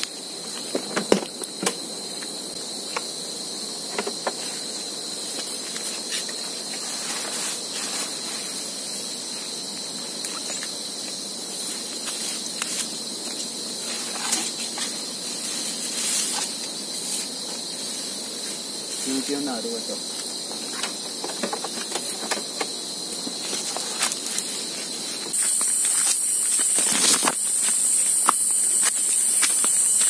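Insects shrilling steadily with a constant high whine, over scattered clicks and rustles of gear being handled. About 25 seconds in, a louder, higher insect chorus sets in abruptly.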